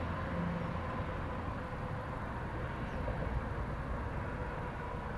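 Long freight train of tank cars rolling past, a steady low rumble with a faint steady hum.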